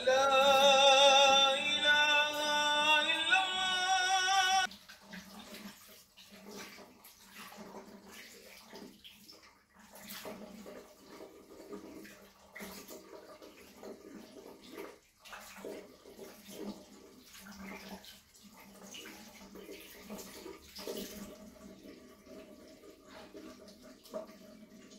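A melodic voice holding a few long, wavering notes that cut off abruptly about five seconds in, then water running and splashing, with scattered small clicks.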